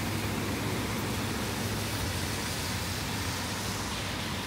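Steady rain hiss mixed with the low, steady hum of a vehicle's engine running.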